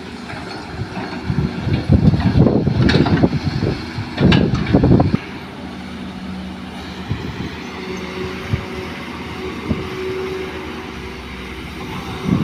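Diesel engines of a crawler excavator and dump truck running with a steady drone, broken by two loud, rough bursts about two and four seconds in.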